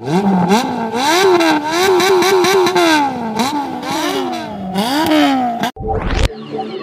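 A high-revving engine blipped over and over, its pitch jumping up and down several times a second. About six seconds in it is cut off by a fast rising whoosh sound effect, and electronic music starts.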